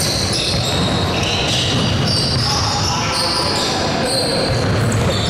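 Basketball bouncing on a gym's hardwood floor during play, with short high squeaks and an echoing large-hall ambience.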